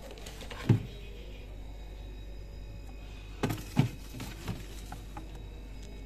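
A plastic thinwall food container knocking against the glass shelves of a refrigerator as it is put away. One sharp thump comes about a second in and a few lighter knocks just past halfway, over a low steady hum.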